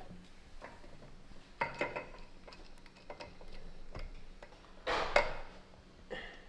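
Irregular metallic clicks and clinks of hand tools and engine parts on a 1973 Kawasaki Z1 cylinder head while the camshafts are being fitted. There are a few small clusters, and the loudest is about five seconds in.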